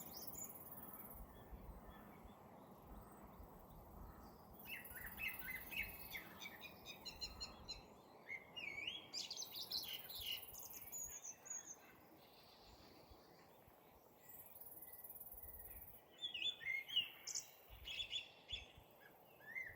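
A small songbird singing in several quick phrases of varied chirps and trills, with pauses between them, over a steady low background hiss.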